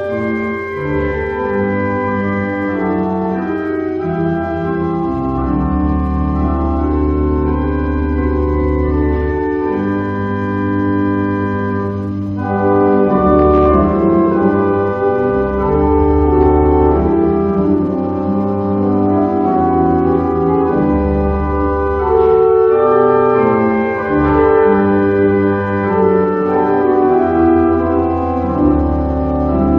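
Pipe organ music: slow, sustained chords over deep bass notes, changing every second or two.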